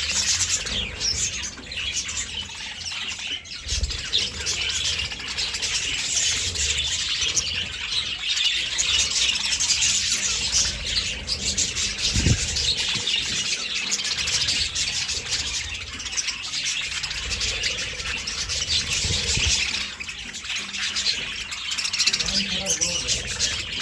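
A flock of budgerigars chattering, chirping and squawking without a pause. There is a short low bump about halfway through.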